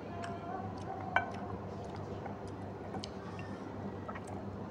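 Close-miked eating by hand: small wet clicks and smacks of chewing and fingers working rice and fish-head curry, with one sharp clink about a second in, over a low steady hum.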